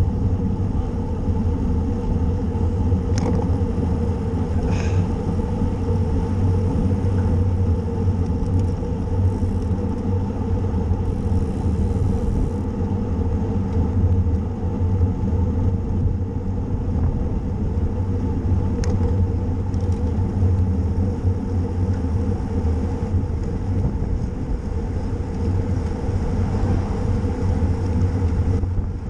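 Steady rumble of wind buffeting the microphone and tyre noise from a bicycle being ridden at speed, with a few short clicks.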